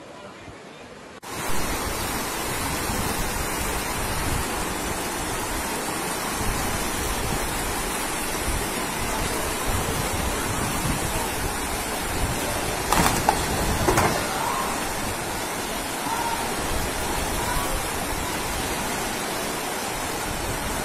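Floodwater rushing in a strong current down a street, a steady loud rush that starts suddenly about a second in. Two brief knocks come about a second apart past the middle.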